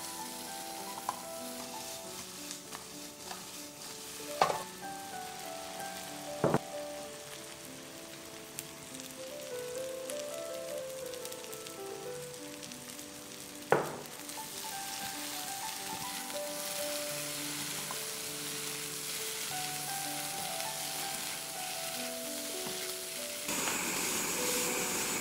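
Tofu stir-fry sizzling in a nonstick wok, stirred with a spatula, with three sharp knocks of the spatula against the pan. The sizzle gets louder about halfway through and again near the end. A soft melody of background music plays throughout.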